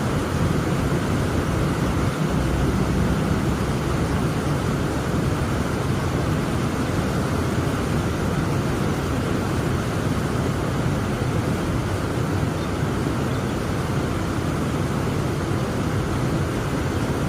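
Heavy rain falling: a steady, even rush of noise, fullest in the low and middle range, with no single drops or claps standing out.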